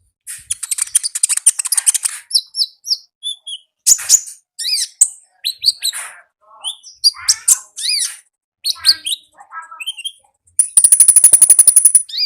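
Konin songbird singing loudly: a fast, rattling trill, then a varied string of short high chirps and whistled notes, and a second rapid trill near the end.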